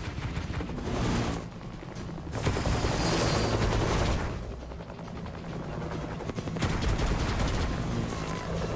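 Action-movie sound effects from a surround-sound demo: rapid bursts of gunfire in waves, over a low, steady music score.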